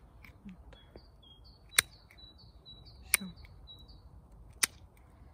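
Pruning shears snipping through dry fruit-tree twigs, three sharp cuts about a second and a half apart. A small bird sings a quick run of short high chirps through the middle.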